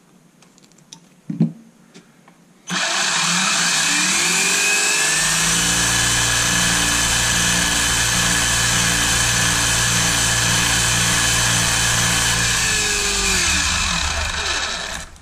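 RC car's stock brushless motor and drivetrain run up under throttle: a short knock about a second and a half in, then a sudden start about three seconds in, a rising whine that holds steady at full speed for about seven seconds, then winds down and stops near the end. The motor, timed at about 39.5 degrees, is drawing about 6 amps, the target starting point for its mechanical timing.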